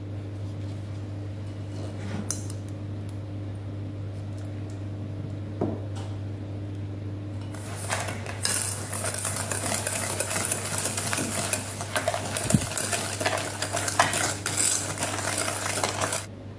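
Wire whisk beating a mixture in a stainless steel bowl: fast metal scraping and clinking against the bowl. It starts about halfway through and stops abruptly near the end. Before it there is only a faint steady hum and a couple of light knocks.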